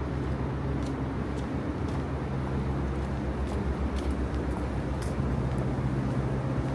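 Steady low mechanical hum over a background of outdoor city noise, with a few faint light ticks.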